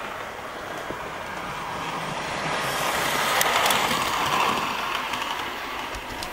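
Bachmann OO gauge model steam locomotive running along the track, a steady whirring hum from its motor and wheels. The hum grows louder toward the middle and then fades, as the model passes close by.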